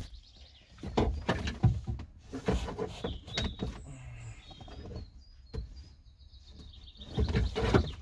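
Scattered clicks and knocks of hands working on plastic trim and seat-belt fittings inside a car, with a louder spell of handling near the end. Faint bird chirps come through in the middle.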